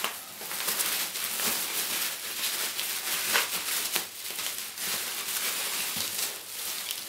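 Plastic packaging crinkling and rustling, with many small crackles, as a laptop keyboard is unwrapped by hand.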